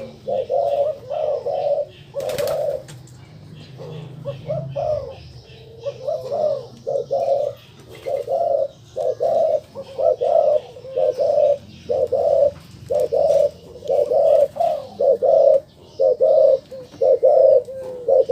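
Colour-variety ringneck dove (puter) giving its courtship coo: a long run of short, rhythmic coos, about two a second, with a brief pause a few seconds in. A single sharp click about two seconds in.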